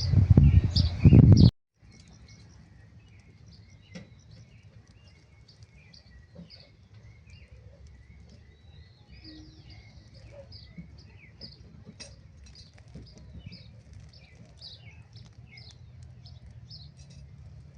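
Small birds chirping, many short calls overlapping. The chirps follow a loud burst of rustling with knocks that cuts off abruptly about a second and a half in.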